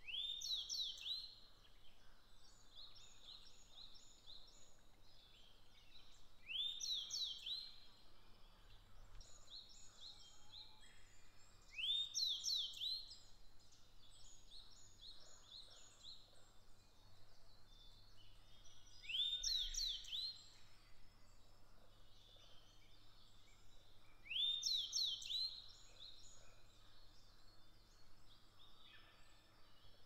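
Male grey bunting singing: five short phrases several seconds apart, each opening with rising high whistles and ending in a few quick notes. Fainter high birdsong fills the gaps.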